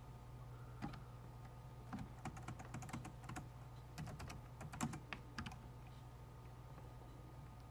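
Faint computer keyboard keystrokes, an irregular run of key taps as data is typed into a form, stopping about two-thirds of the way through and leaving a low steady hum.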